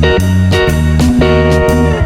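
Background music led by guitar over a heavy bass line.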